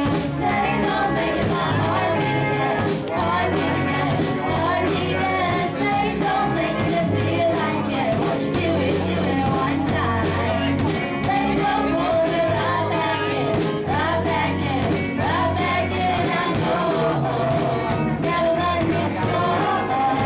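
Live rock band playing: a young girl sings lead over electric guitars, bass, keyboard and drums, with cymbals keeping a steady beat.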